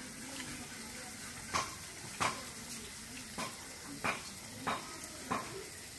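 Fingers mixing rice and curry against steel plates, eating by hand: a soft scraping with about six short, sharp clicks and taps of hands and food on the metal, at uneven intervals.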